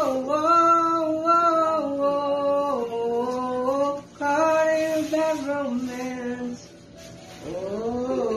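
Someone singing a slow melody in long held notes, with short breaks between phrases and a rising start to a new phrase near the end.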